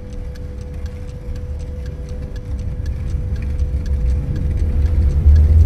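Tractor engine running, a low rumble that grows steadily louder, with an even ticking beat of background music over it.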